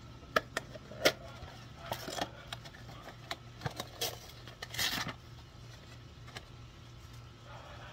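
Coffee packaging being handled and opened: a few sharp clicks in the first second or so, then short rustling bursts around two, four and five seconds in. A low steady hum runs underneath.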